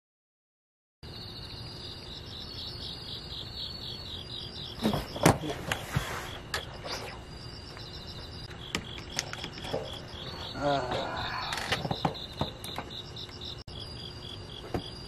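Night crickets chirping in a steady, rhythmic pulsed trill, starting about a second in. A few sharp knocks and clicks are heard over it, typical of fishing gear being handled on the bank.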